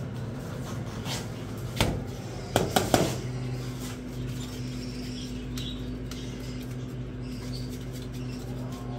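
Faint squeaky cheeping of budgerigar chicks over a steady low hum, with a few sharp knocks about two to three seconds in.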